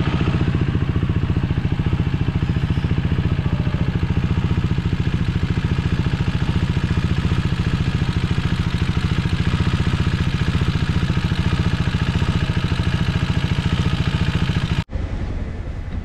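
Motorcycle engine idling steadily close by, with an even rapid pulse and no revving; it cuts off suddenly about fifteen seconds in.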